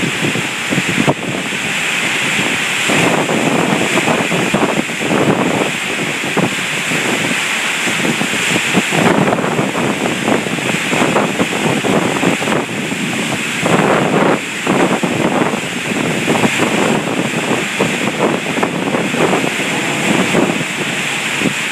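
Heavy thunderstorm rain falling in a downpour: a loud, steady hiss thick with close, crackling drop impacts.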